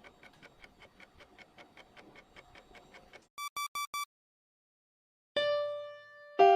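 Faint, fast, clock-like ticking at about six ticks a second, then four short, high electronic beeps in quick succession. After a second of silence, an electric piano note sounds near the end.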